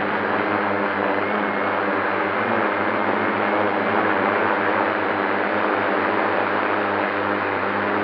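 FPV quadcopter's electric motors and propellers buzzing steadily, holding an even pitch throughout.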